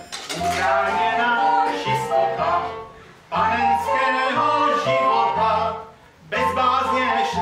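Folk song with singing and fiddle accompaniment, in short phrases broken by brief pauses about three and six seconds in.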